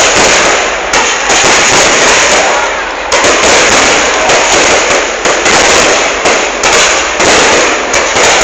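A fireworks display going off loudly as a dense, unbroken barrage of bangs and crackles.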